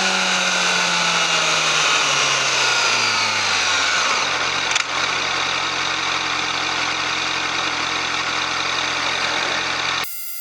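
Yamaha YZF-R6's 600 cc inline-four on its stock exhaust, the revs falling steadily over about four seconds and then holding at a steady lower speed. A brief click about five seconds in, and the engine sound cuts off abruptly near the end, leaving a quieter steady hum.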